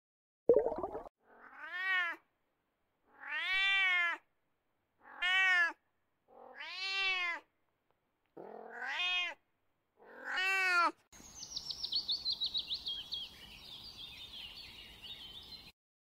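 A cat meowing: a short harsh call, then six separate meows, each rising and falling in pitch and lasting under a second. About eleven seconds in, a rapid run of high chirps takes over, sliding slowly lower, for about four and a half seconds.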